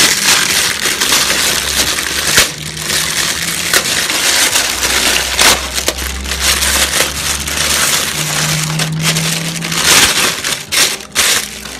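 Loud crinkling and rustling of a clear plastic bag being handled and pulled off a microphone pop filter.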